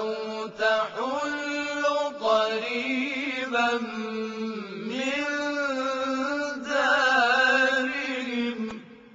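Quran recited in chorus by male voices, chanted melodically with long held notes that bend and ornament in pitch; the phrase ends near the end.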